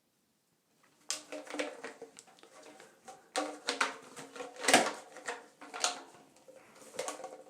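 Irregular clicks and clattering of small plastic pipe pieces being handled and pushed together, starting about a second in.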